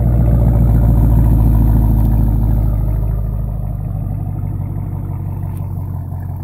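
Chevrolet Camaro SS's 6.2-litre V8 idling, heard close to the exhaust tip as a steady low rumble. It eases slightly in loudness after about three seconds.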